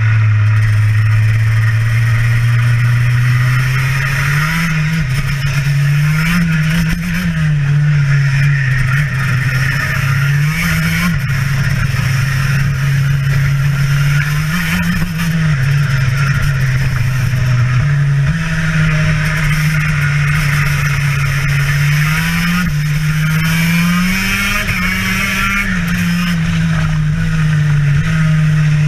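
TM KZ10B 125 cc two-stroke kart engine at race pace, heard from the kart. Its revs climb and drop again and again through the lap.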